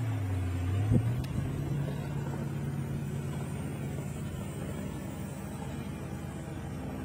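A motor engine running steadily at a low pitch, dipping in pitch briefly in the first second and then settling back. A sharp click comes about a second in.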